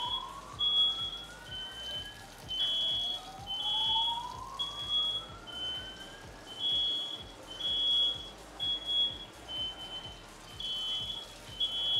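Smoke alarm beeping over and over, a high electronic beep about every three-quarters of a second at two alternating pitches, set off by smoke from a pan of overheated olive oil that caught fire. Two slow rising tones sound over it in the first half.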